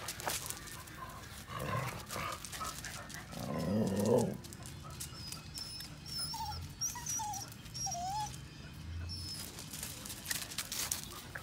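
Small white dogs moving about on gravel, with one short, pitched dog vocalisation about four seconds in and scattered scuffing clicks.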